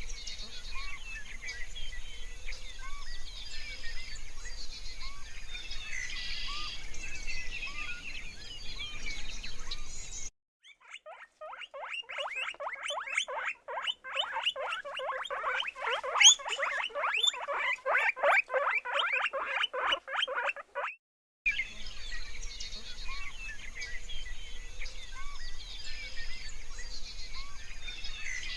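Small birds chirping over a steady background. About ten seconds in it cuts abruptly to a dense, rapid run of short animal calls, which stops just as abruptly about eleven seconds later, and the birdsong returns.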